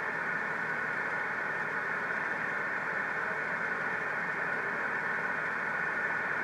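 Steady hiss of band noise from an amateur radio transceiver receiving single sideband (USB) on the 6-metre band, cut off sharply above about 2.5 kHz by the receive filter, with no readable signal in it.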